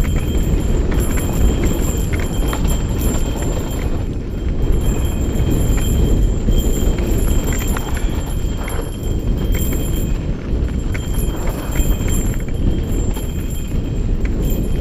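Mountain bike riding downhill on a dirt singletrack, heard from a camera on the bike: wind rushing on the microphone, tyres rolling over loose dirt and rocks, and frequent short clicks and knocks from the bike rattling over bumps.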